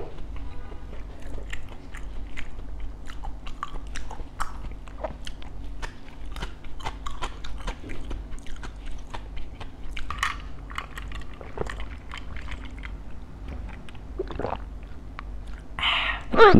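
Close-miked eating of crispy fried bánh khọt (Vietnamese mini rice pancakes with pork filling): many small crunching bites and chews. A brief louder sound falling in pitch comes near the end.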